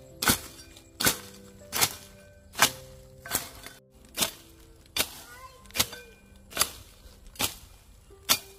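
A blade hacking at grass with steady chopping strokes, about eleven sharp blows evenly spaced a little under a second apart, over soft background music.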